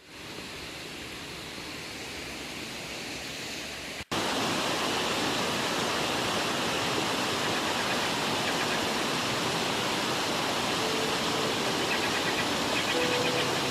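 Rushing water of a mountain stream and waterfall, a steady hiss of flowing water. About four seconds in it cuts briefly and comes back louder and closer.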